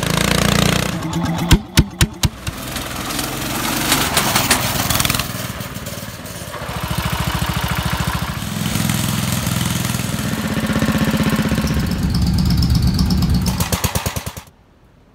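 Small engine of a red garden tractor running, its exhaust coming out through an upright stack, with an even beat of firing pulses. Several sharp, very loud bangs come about one and a half to two seconds in, and near the end the beats slow and stop as the engine shuts off.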